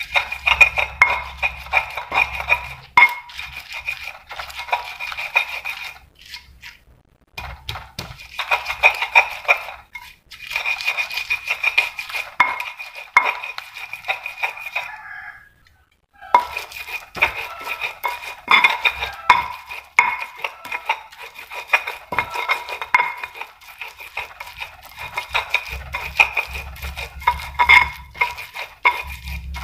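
Stone pestle grinding in a stone mortar (Indonesian ulekan and cobek): rapid gritty scraping and knocking strokes of stone on stone as chilies and spices are worked into a paste. The grinding pauses twice briefly.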